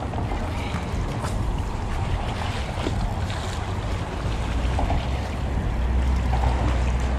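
Wind buffeting the microphone over small waves lapping at shoreline rocks, the low rumble growing stronger in the second half, with a few faint clicks.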